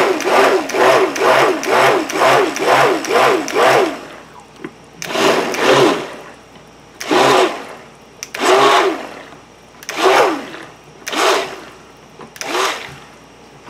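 Stick blender pulsed in a pitcher of soap batter to mix in brown colourant. It runs in quick bursts, about two or three a second, for the first four seconds, then in six separate short bursts, each whirring up and dying away in pitch.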